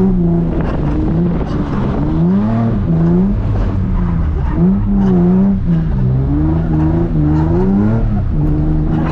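Nissan 350Z's 3.5-litre V6 revving up and down again and again as the throttle is worked to hold the car in a drift on wet pavement.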